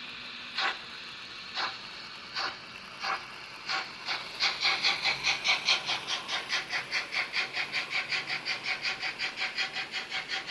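Sound decoder of a Märklin HO model of the SBB Eb 3/5 steam locomotive playing steam exhaust chuffs through the model's small speaker. The chuffs come about once a second at first, then speed up from about four seconds in to a quick, even beat of about four or five a second as the locomotive gathers speed.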